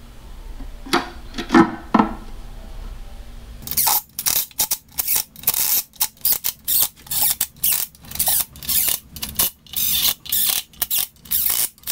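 Cordless drill-driver running the bolts of a water jacket side cover into a tractor engine block, in quick repeated short bursts from about four seconds in. It follows a few light knocks as the cover is set in place.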